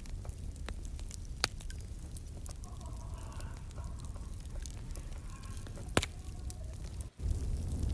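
Crackling fire ambience: a steady low rumble with scattered small crackles and two sharp pops, about a second and a half in and about six seconds in. The sound cuts out for a moment just after seven seconds in.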